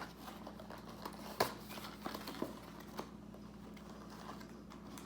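Paper and cardboard fast-food packaging handled and crinkling, with a few sharp taps and clicks, the loudest about one and a half seconds in.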